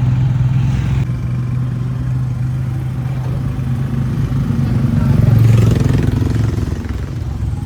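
Motorcycle engine of a sidecar tricycle running steadily on the move, with a low hum that grows briefly louder about five seconds in.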